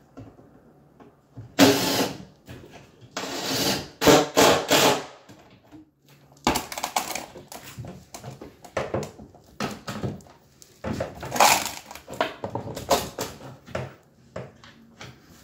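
Power drill driving screws into cabinet wood in several short bursts, with clicks and knocks of handling between them.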